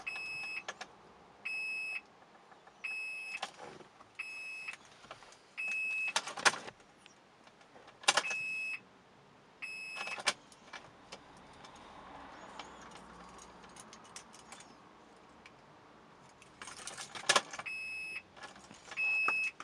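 Car's electronic warning chime beeping again and again, one short high beep at a time, in irregular runs with a long pause in the middle. Sharp clicks, knocks and a rattle like keys come in between. No engine is running.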